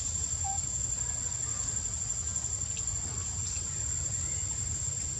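Insects giving a steady, high-pitched drone that holds one pitch throughout, over a low rumble.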